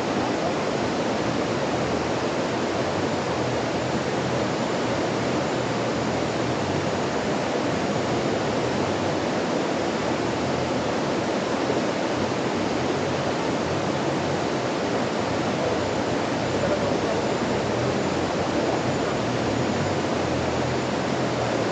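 Stream water rushing in a steady, even flow.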